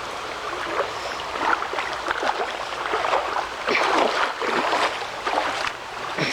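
Water splashing and sloshing as a homemade fish trap is lifted and emptied, in irregular spills that are busiest in the second half, over the steady rush of a small creek.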